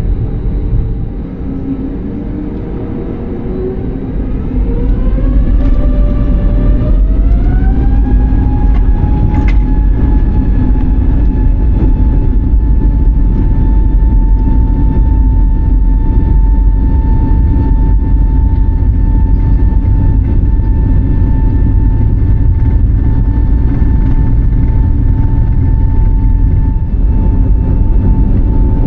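Airbus A320neo's turbofan engines spooling up to takeoff thrust: a whine rising in pitch over the first eight seconds or so, growing louder about four to five seconds in, then holding a steady high tone over a heavy rumble.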